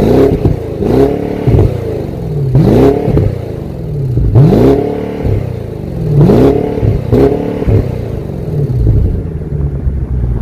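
2021 BMW M550i's twin-turbo V8 exhaust, warmed up in Sport Plus mode, revved in place: about six quick blips, each rising sharply in pitch and falling back toward idle.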